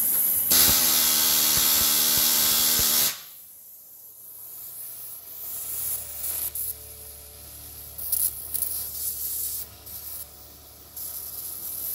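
Pneumatic rivet hammer driving a red-hot steel rivet: a loud, rapid rattle for about two and a half seconds that stops abruptly. Afterwards, the quieter hiss of an oxy-acetylene torch heating the next rivet.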